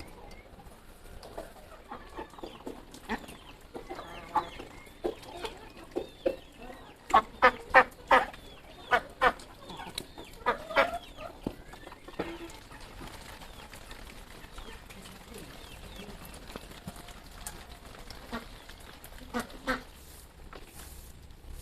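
Chickens clucking, with a run of loud, quick cackling calls about seven to eleven seconds in.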